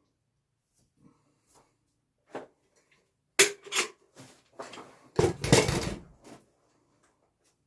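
A few knocks and clatters of things being handled on a work surface: two sharp knocks about three and a half seconds in, then a louder, rougher clatter about five seconds in.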